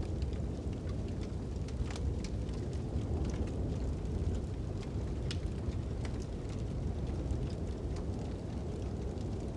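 Fire crackling with irregular sharp pops over a steady low rumble of wind.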